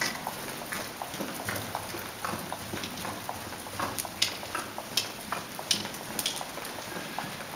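A saddled horse moving over arena sand: soft hoofbeats with irregular small clicks and creaks from the saddle and bridle.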